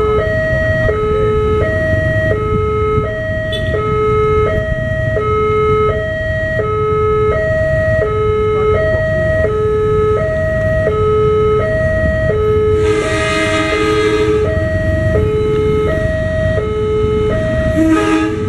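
Railway level-crossing warning alarm sounding its electronic two-tone signal, alternating low and high about once every second and a half, the sign that a train is approaching. About 13 seconds in, the approaching diesel locomotive gives a short horn blast, with a brief second sound near the end, over a low rumble.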